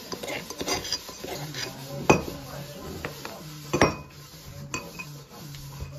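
Metal spoon scraping and clinking against an aluminium mortar and a ceramic bowl while pounded chili chutney is transferred, with two sharp clinks about two and four seconds in and a few lighter taps after.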